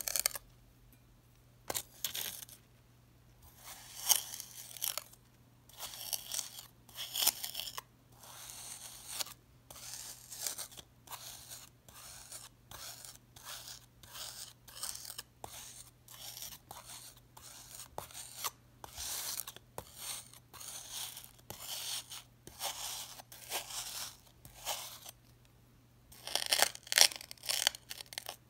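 Steel knife blade cutting and scraping through packed, crunchy moulding sand, the sand crunching and crumbling in a long series of short crunches. The crunches come thicker and louder near the end.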